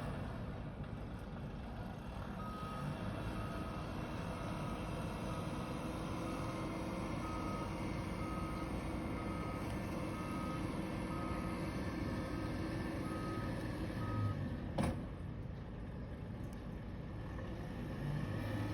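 A vehicle's reversing alarm beeping at a steady pace, about one beep a second, then stopping, over a steady low rumble. A single sharp knock follows a little later.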